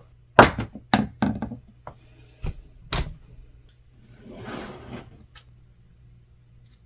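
Duct tape and tools being handled at close range: several sharp taps and clicks in the first three seconds, then about a second of rasping noise, as from tape being pulled and worked, about four seconds in.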